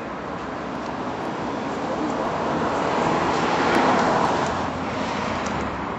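A road vehicle passing, its tyre and engine noise swelling to a peak about four seconds in and then fading, over steady traffic noise.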